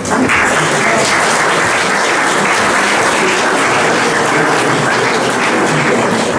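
Audience applauding: steady clapping that starts suddenly and dies away near the end.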